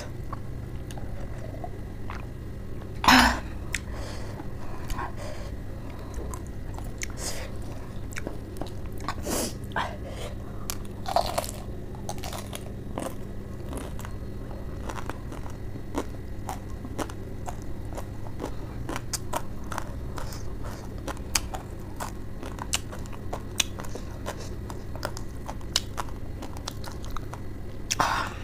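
Close-up mouth sounds of chewing and crunching raw cabbage and lettuce leaves: many small crisp bites and clicks, with a brief louder noise about three seconds in.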